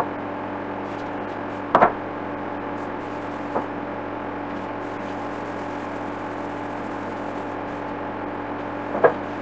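A steady humming drone with a few short knocks: a metal can of Danish oil being handled against a wooden tabletop. The loudest knocks come just under two seconds in and again near the end, with a faint one in between.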